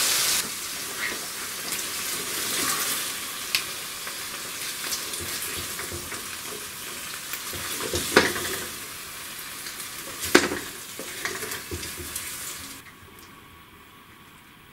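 Chicken pieces in sauce sizzling in a hot wok with the flame just turned off, while a slotted spoon scrapes them up and clinks against the pan and plate, with a few sharper knocks. The sizzling cuts off suddenly near the end.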